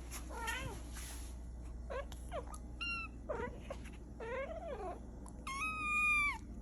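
Cats meowing repeatedly: about six separate meows, some short and bending in pitch, the longest and loudest one near the end.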